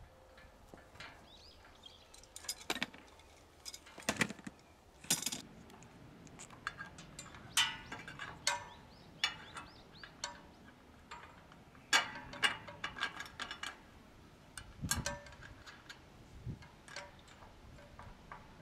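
Irregular metallic clinks and knocks from steel Smith machine parts being handled and fitted together during assembly.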